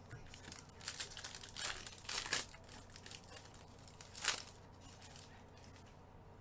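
Panini trading card pack wrappers crinkling and being torn open by gloved hands: several short rustling rips in the first few seconds, then one sharper rip about four seconds in.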